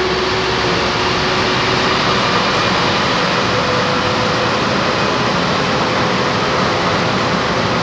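Interior running noise of a Turin Metro Line 1 VAL 208 driverless rubber-tyred train cruising through the tunnel: a steady rush with a faint whine that steps up in pitch about three and a half seconds in.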